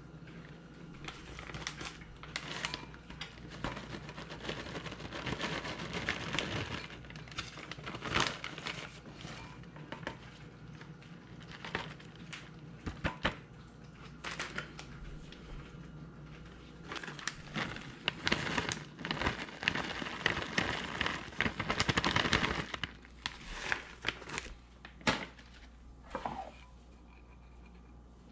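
A resealable plastic bag of shredded cheddar crinkling as the cheese is shaken out of it into a glass measuring cup. The rustling comes in bursts and is broken by scattered sharp clicks.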